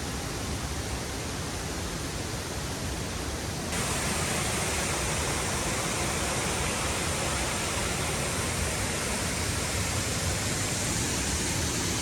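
Waterfall's loud, steady rushing noise, stepping up suddenly louder and brighter nearly four seconds in.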